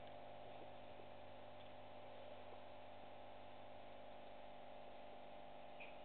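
Quiet room tone: a steady low electrical hum with faint hiss and a tiny click near the end.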